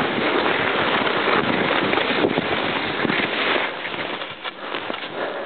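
Wind rushing over a pack-mounted camera's microphone, with the hiss of skis running through powder snow on a fast descent. The rush drops in level about three and a half seconds in.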